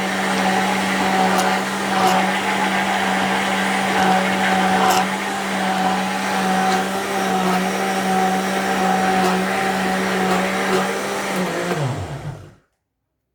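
Arno LSA blender motor running at a steady pitch, with a few faint clicks. Near the end it is switched off and winds down, its pitch falling.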